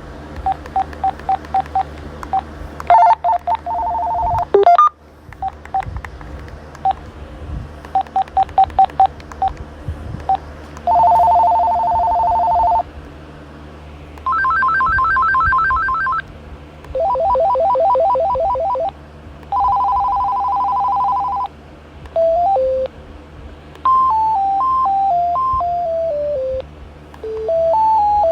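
An electronic telephone sounding its ringtones one after another. Runs of short button beeps come first, then fast warbling trill rings at several pitches, each lasting about two seconds, and in the last few seconds melodic ringtones of stepped, falling notes.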